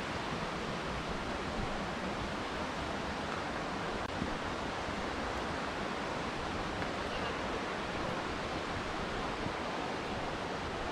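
Steady rush of running water: an even hiss that holds at one level without breaks.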